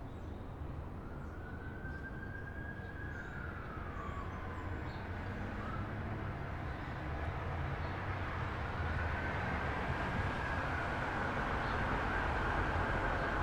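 Distant emergency-vehicle siren wailing in long slow pitch glides over a steady low traffic rumble, fading briefly and then growing louder through the second half. Faint high chirps sit above it.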